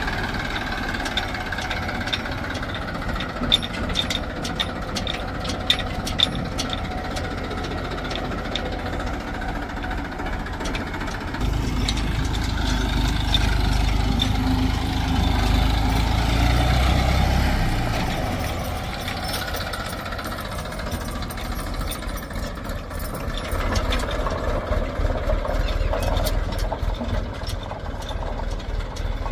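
Diesel engine of heavy machinery running steadily. For about six seconds in the middle it comes under load and grows louder and deeper. A few sharp knocks sound in the first several seconds.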